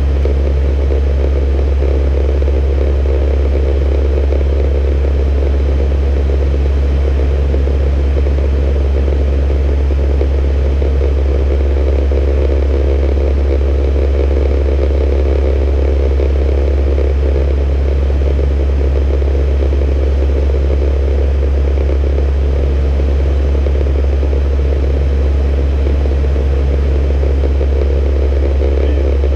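Steady drone of an ATR 42-320's twin turboprop engines and propellers heard inside the cockpit in flight: a loud, unchanging low hum under a broad rush of airflow noise.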